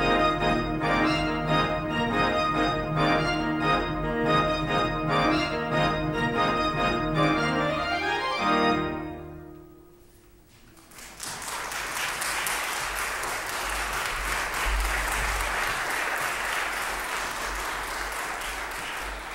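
A 57-rank Noack pipe organ plays fast repeated-note figures. About eight seconds in, a rising run leads to a final chord that dies away in the room's reverberation. About a second later an audience breaks into steady applause.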